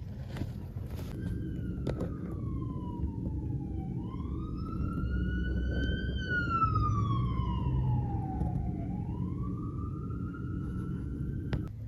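Emergency vehicle siren in a slow wail, its pitch sweeping down and back up roughly every five seconds, over the low rumble of road traffic. It starts about a second in and cuts off sharply just before the end.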